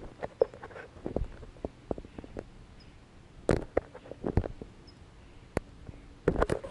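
Scattered, irregular light knocks and scuffs, like footsteps and handling noise. There is no steady engine running.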